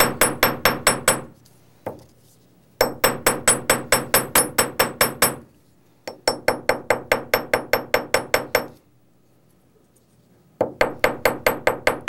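Chasing hammer striking the end of 14-gauge sterling silver wire on a steel bench block, in quick runs of about five ringing blows a second broken by short pauses. The blows flatten the wire's end into a flare.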